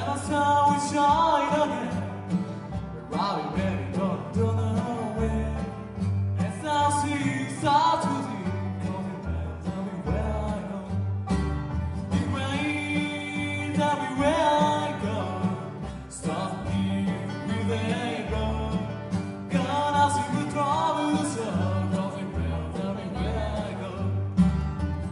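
Acoustic bluegrass band playing live: mandolin, upright bass, acoustic guitar and banjo, with the bass plucking a steady beat. A voice sings the melody in phrases over the instruments.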